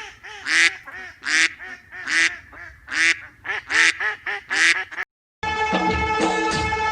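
Duck quacking over and over, about six loud quacks evenly spaced with softer calls between. It cuts off about five seconds in, and music starts just after.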